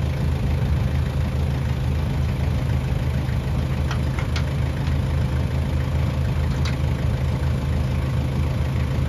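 Tractor engine idling steadily close by, with a few short metallic clicks from the camper's hitch being worked, about four seconds in and again near seven seconds.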